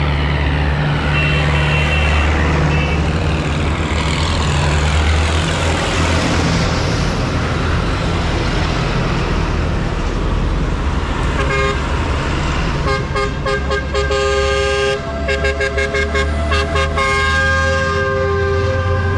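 Tractor engine running steadily. About two-thirds of the way in, a multi-tone horn starts sounding, held and broken by a few short gaps.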